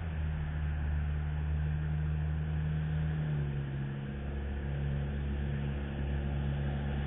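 Steady low hum of a motor vehicle engine running near the microphone, its tone shifting slightly about three seconds in.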